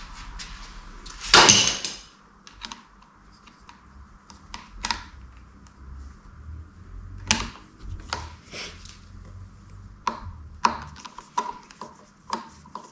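Scattered metallic clicks and taps of a screwdriver working at a Honda CB650R's front brake lever pivot, with one louder, longer scrape about a second and a half in.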